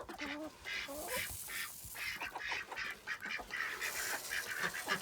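Farm poultry calling around the feed, a quick run of short, repeated calls with a couple of lower calls near the start.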